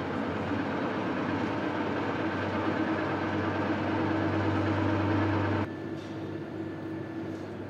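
Overhead crane's electric drive humming steadily with a low tone. It cuts off abruptly about two-thirds of the way through, leaving a quieter background hum.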